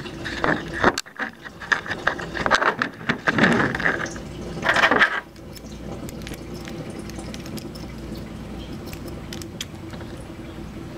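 Kenmore refrigerator taking in water through its filter. It is loud and uneven with clicks for the first five seconds, then settles into a steady hum of running water.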